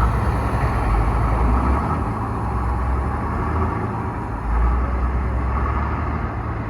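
Engine of heavy road-construction machinery running steadily, a continuous deep rumble with engine noise over it.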